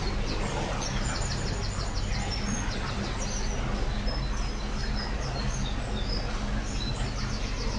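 Steady low hum and churning water from an electric narrowboat moving under propeller through a brick canal tunnel, with small birds chirping and trilling over it.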